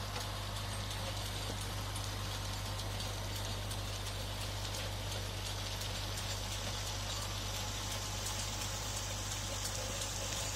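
John Deere 5615F tractor engine running steadily under load while its rear-mounted Joper rotary tiller churns the soil, a constant low hum with a dense crackling patter over it.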